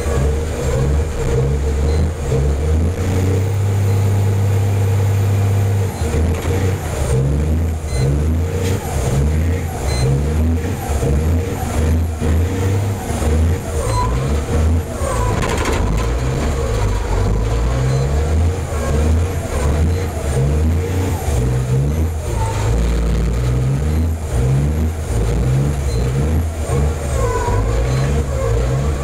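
A semi-truck's diesel engine heard from inside the cab, revved hard and let off again and again as the truck drifts, held at high revs for a few seconds about three seconds in. A high whistle rises and falls with each rev, and a short hiss of air comes about sixteen seconds in.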